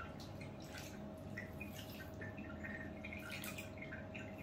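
Water dripping and trickling from a wet hand onto a small monkey's head and back into a plastic basin of bathwater, in soft scattered drips.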